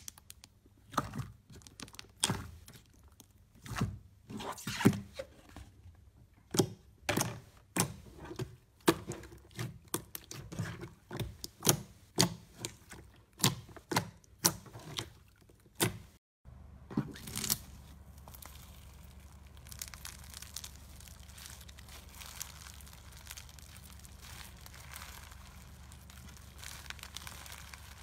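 Glossy pink slime pressed and poked by hand, giving a run of sharp wet pops and squelches, about one or two a second. After a short break about sixteen seconds in, bead-filled crunchy slime is squeezed, with a steady fine crackling.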